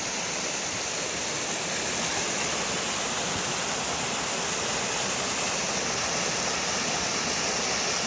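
Small mountain stream cascading over rocks: a steady rush and splash of flowing water.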